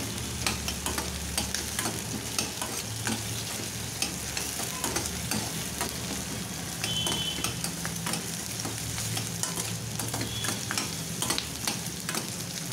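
Sliced onions and green chillies sizzling in hot oil in a stainless steel kadai, stirred with a metal spatula that clicks and scrapes against the pan many times.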